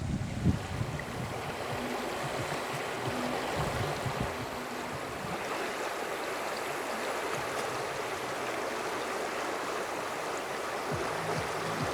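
Steady rush of running water from the Usa River flowing. A few low thumps sound in the first half second.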